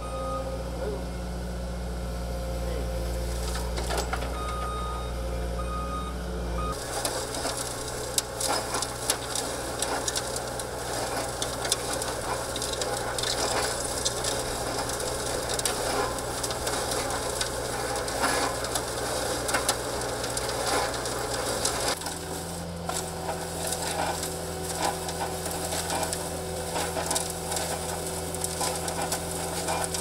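Skid steer loader engine running steadily, with the hydraulic-driven drum of an EZ-Screen 100 trommel soil screener turning and soil and small stones rattling and crackling through the screen and pattering down onto the pile. The engine tone shifts twice, at about seven seconds and near twenty-two seconds.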